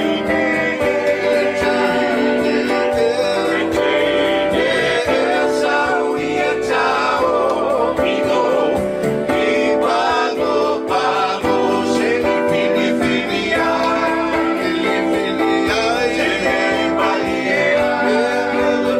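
A Samoan song: singing over instrumental accompaniment with steady held chords.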